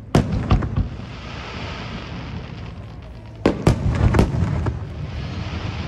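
Aerial fireworks shells bursting: a cluster of sharp bangs right at the start, another cluster about three and a half seconds in, and a hissing crackle between them.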